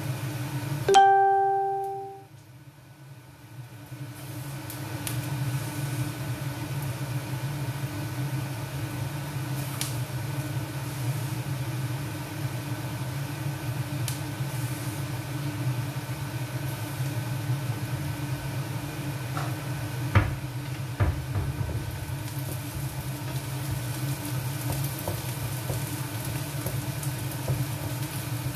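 Onions frying gently in a pan on an induction hob, with a steady low hum and a faint even sizzle. About a second in, a single ringing tone sounds and fades. Two sharp clicks come a little after two-thirds of the way through.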